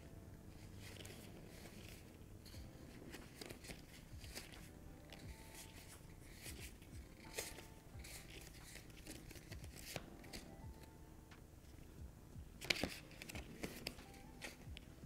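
Monopoly Deal playing cards being slid off a stack and added to a pile in the hand: a run of light paper clicks and snaps, the sharpest cluster near the end, over faint background music.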